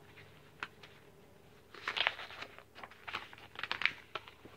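A picture book's paper page being turned and the book handled: a few short rustles and crinkles from about two seconds in.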